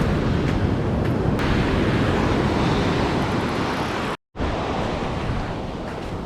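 Sea surf on a pebble beach, a steady wash with wind buffeting the microphone. The sound cuts out completely for a moment just after four seconds in.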